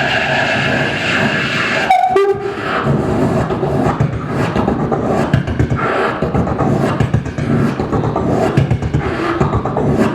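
A man imitating a modern intercity train at a station with his voice, amplified through a microphone: a steady, held hum for about two seconds, a sudden break with a short falling tone, then irregular hissing and clattering rail sounds.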